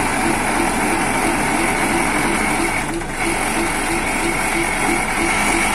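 Diesel engine of a Mitsubishi Fuso dump truck running steadily, heard at the open engine bay with the cab tilted forward.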